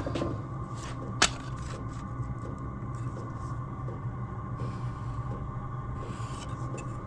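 Steady low hum in a small workshop, with one sharp click about a second in and two short, light scratching strokes near the end.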